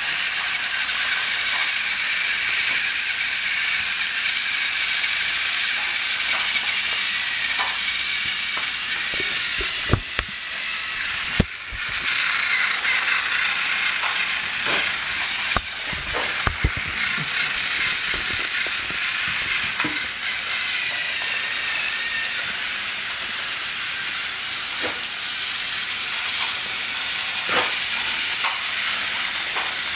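Battery-powered TrackMaster toy engines running on plastic track: a steady high whir of their small motors and gears. A few sharp clicks and knocks come between about ten and seventeen seconds in.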